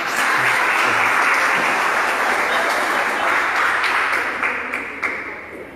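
Audience applauding, the clapping holding steady and then dying away near the end.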